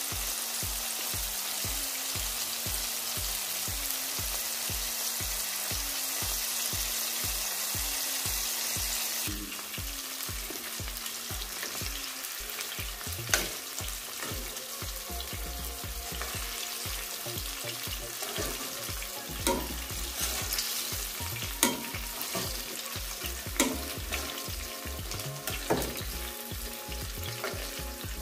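Flour-coated chicken pieces frying in hot oil in a pan: a steady sizzle that drops somewhat about nine seconds in. From about halfway, metal tongs click sharply against the pan several times as pieces are turned and lifted out.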